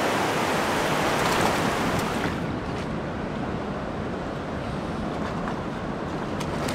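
Steady rush of a flowing canyon stream running over rocks, with a few small splashes near the end as a hooked trout thrashes at the surface.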